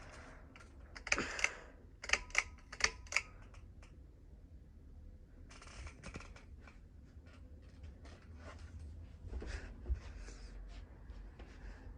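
A series of sharp mechanical clicks: a cluster about a second in, then four in quick succession about two to three seconds in, with fainter clicks later, over a low steady hum.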